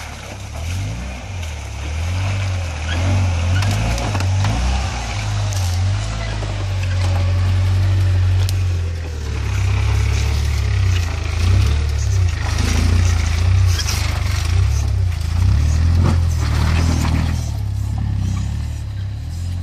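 Opel Frontera SUV's engine running at low revs, its note swelling and easing as the vehicle crawls through mud and over rocks, with occasional knocks from the chassis and tyres.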